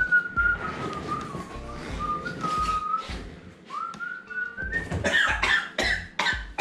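A person whistling held notes that slide slowly down and back up, a break, then a rising note. Near the end a few short knocks and clatters.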